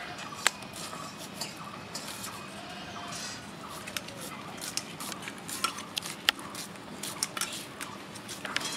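Irregular sharp clicks and knocks, a dozen or more scattered through, over a faint steady hum.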